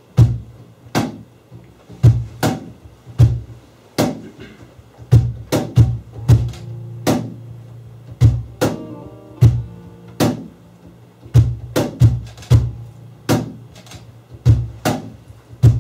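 Acoustic band intro: a cajon beating a steady groove of deep bass hits and sharp slaps, with acoustic guitar, bass guitar and a melodica playing along, a held chord about nine seconds in.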